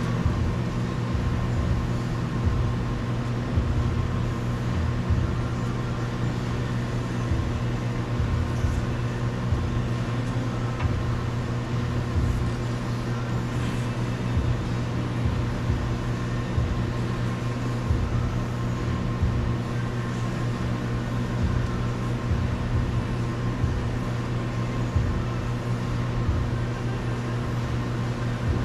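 Steady low mechanical hum that does not change, with a few faint clicks over it.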